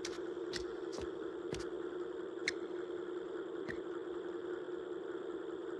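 A steady droning hum with about six sharp knocks scattered through the first four seconds, the knocks then stopping.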